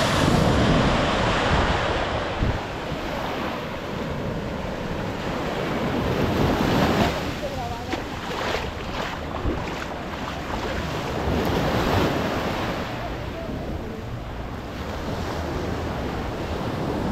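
Ocean surf breaking on a beach, swelling and falling back in waves that peak about a second in, around seven seconds and around twelve seconds, with wind buffeting the microphone.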